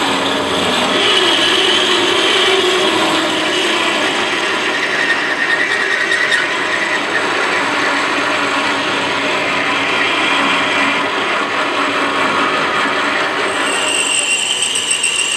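Belt-driven WM210V bench lathe running with its spindle turning while a single-point tool cuts a spinning metal workpiece, a steady mechanical whirr with the scrape of the cut. Near the end a higher steady whine comes in.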